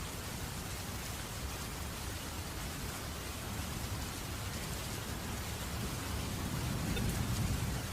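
Steady rain falling in a constant hiss, with a low rumble of distant thunder building about six seconds in and easing off near the end.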